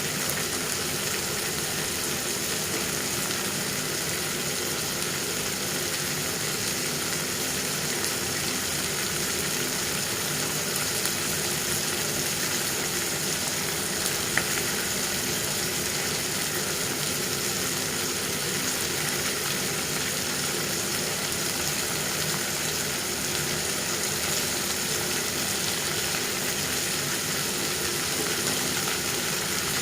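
Chicken curry frying in mustard oil, a steady sizzle, with a single small click about halfway through.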